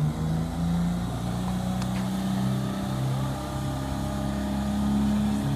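Petrol engine of a six-wheeled ATV-based robot vehicle running as the vehicle drives slowly. It hums steadily, and its speed shifts up and down, settling higher near the end.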